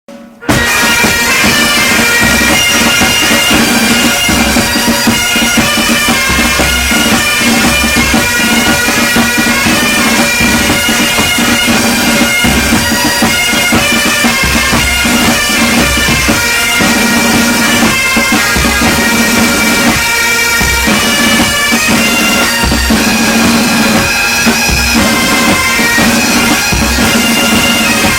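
Military pipe band playing: bagpipes sound a tune over a steady drone, with a bass drum beating underneath. The music starts about half a second in.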